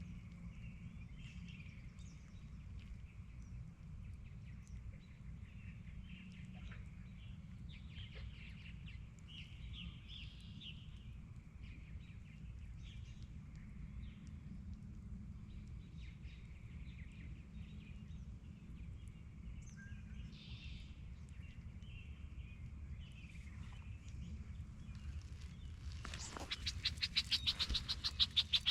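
Small birds chirping on and off over a steady low rumble. Near the end comes a rapid run of even, ticking clicks, louder than anything else.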